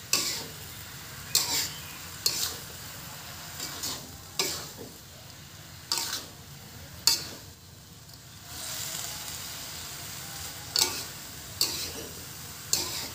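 Spatula scraping and knocking against a wok as a napa cabbage stir-fry is tossed, with a steady sizzle of frying underneath. The sharp scrapes come at irregular moments, about nine of them.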